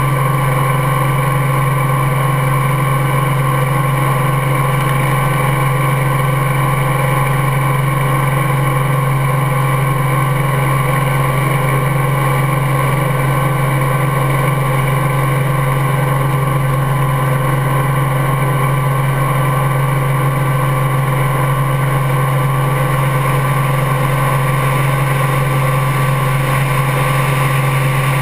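Helicopter engine and rotors running steadily at flight power through takeoff and climb-out, a constant loud hum with a steady higher whine.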